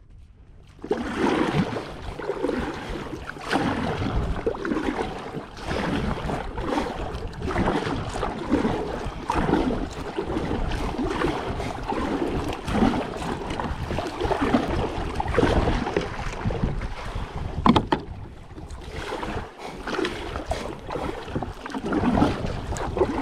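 Water sloshing and splashing against a kayak hull on the open sea, with wind buffeting the microphone as a steady rumble. One sharp knock on the kayak about three-quarters of the way through.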